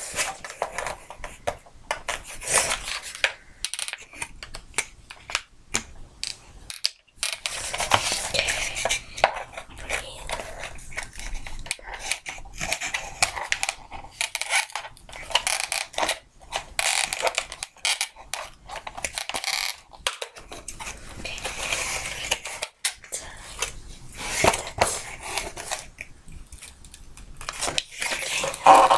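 Scissors snipping and scraping at a cardboard toy box, with the rustle and clatter of the packaging being handled, and a louder knock near the end.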